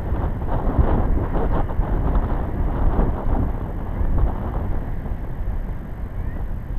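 Wind buffeting an outdoor camera microphone: a loud, uneven rumble with irregular gusty bumps.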